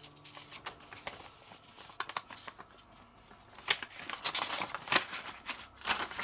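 Folded sheets of paper rustling and crinkling as they are handled, opened and turned over, with sharper crackles and taps coming thicker and louder from about three and a half seconds in.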